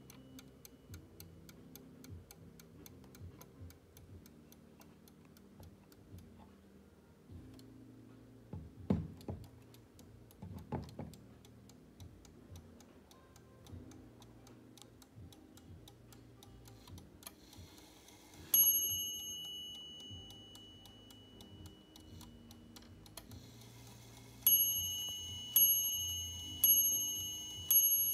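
Schmid Schlenker brass mantel clock ticking quickly and evenly, with a few handling knocks around 9 and 11 seconds in. Its striking train rings a small bell once about two-thirds of the way through, then starts a run of strikes a little over a second apart near the end.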